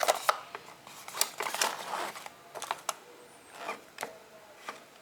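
Hands handling the GoPro Hero 8 box and its plastic packaging: irregular small clicks and rustles, busy for the first two seconds and then sparser.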